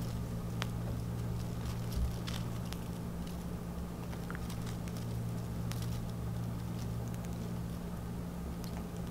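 Faint rustling and small crackles as fingers handle radish seedlings and pull the extras out of saturated soil, over a steady low hum.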